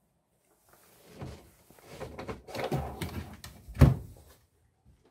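Hinged countertop lid of a top-loading boat fridge being handled and swung shut, with a few light knocks and then one solid thump as it lands closed near the end.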